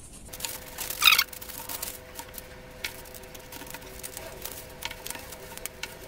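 Pieces of corrugated cardboard being handled and fitted together by hand: a short scrape about a second in, then scattered light taps and rustles.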